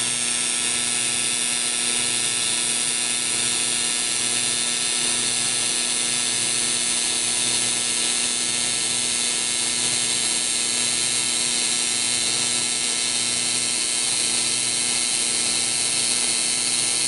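AC TIG welding arc on aluminium from a Fronius MagicWave 230i: a steady buzzing hum of many stacked tones over a high hiss, running at 120 Hz AC frequency. It holds unbroken and fades out just after the weld ends.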